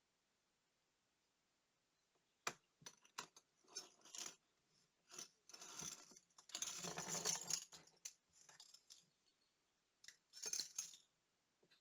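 Small metal watch parts and tools clicking and clinking against a work surface, in a string of short sharp sounds, with a longer scraping rustle in the middle and another cluster of clicks near the end.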